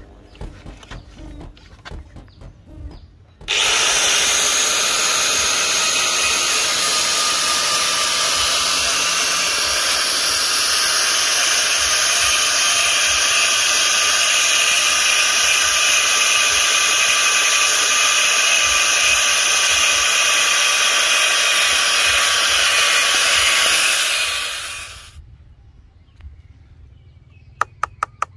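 Electric angle grinder with a sanding disc switched on and running steadily, sanding the edge of a PVC sheet part, then winding down when switched off. Light handling clicks before it starts and after it stops.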